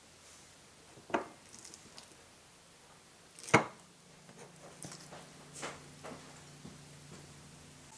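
Drinking glass knocking against a ceramic saucer as it is worked off a set panna cotta: a light knock about a second in, a sharp louder knock about halfway, then a few faint clicks and taps.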